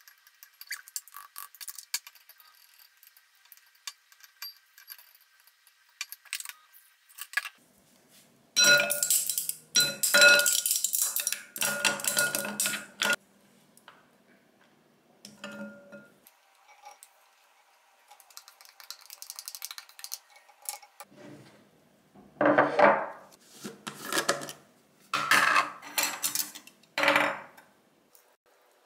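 Spoon and chopsticks clinking and scraping against a glass mixing bowl and a plastic food container, with faint clicks at first, then a long stretch of loud rattling clatter as ice cubes go into the bowl, and several more loud clattering bursts near the end.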